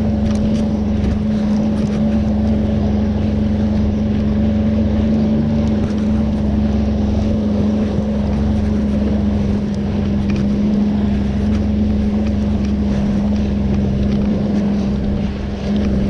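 Jet ski engine running steadily at low speed, a constant hum over wind and water noise.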